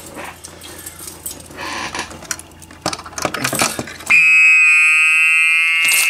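A few faint handling clicks over a low hum, then about four seconds in a Gentex SHG fire alarm horn suddenly sounds a loud, continuous high-pitched tone that drifts slightly down in pitch.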